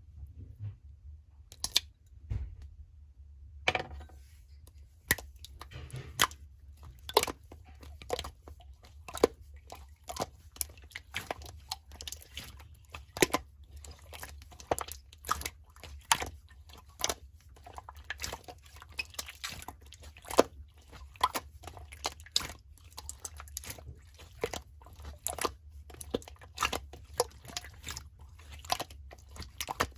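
Slime being pressed and poked by hand, giving irregular sharp clicks and pops, a few at first and then several a second from about four seconds in.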